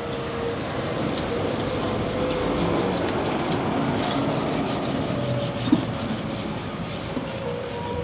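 A chef's knife drawn through the fat cap of a beef top blade, a steady rubbing, scraping sound as the fat is sliced away from the meat. There is one short knock a little past the middle.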